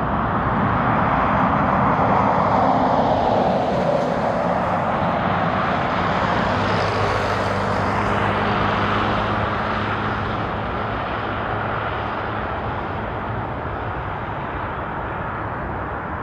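Jet airliner passing close by. Its engine roar swells, drops in pitch as it goes past, then slowly fades away.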